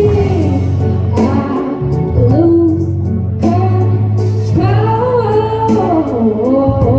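Solo singer performing a soul-pop ballad, holding long notes that slide up and down over a steady instrumental accompaniment with a strong bass line.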